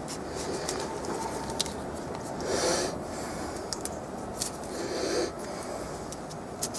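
A small knife paring the skin off a prickly pear cactus pad, giving a few faint sharp clicks. Two louder breaths, about two and a half and five seconds in, come from the person doing the peeling close to the microphone, over a steady outdoor hiss.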